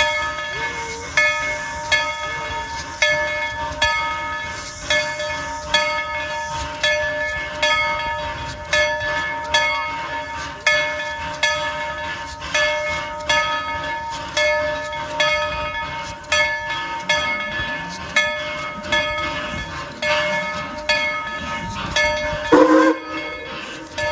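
Steam locomotive's bell ringing steadily, struck about once a second, over the low rumble of the train running. About two seconds before the end there is a brief, louder rising squeal.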